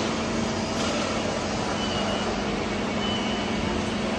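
Steady machinery hum and noise of a metalworking factory hall, even and unchanging, with a constant low hum and faint high tones above it.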